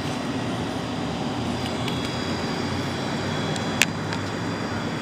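Steady outdoor vehicle and traffic noise with a low hum, and one sharp click a little before four seconds in.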